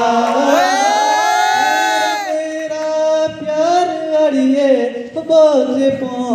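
Pahari folk song played over the hall's PA speakers: a backing track with a steady low drone under a wavering melody line of long held notes.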